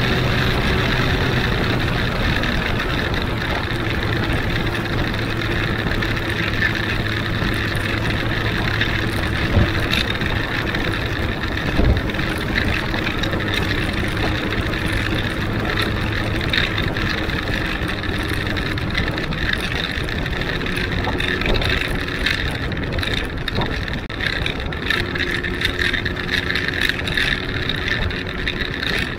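Benelli Huanglong 600 motorcycle's inline-four engine running at a steady pitch while being ridden.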